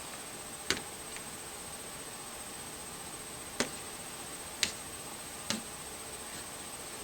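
A pointer tapping on a wall chart: four sharp taps at uneven intervals, with a faint fifth one after the first.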